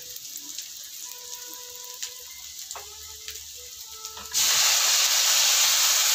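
Soy sauce poured into a hot wok of fried garlic and onion, setting off a sudden loud sizzle about four seconds in that runs on steadily. Before it, only a low background with a few light clicks.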